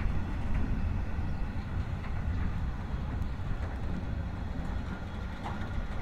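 Freight train of open box wagons rolling past and away, a steady low rumble of wheels on the rails with a few faint clicks, easing slightly as the last wagon draws off.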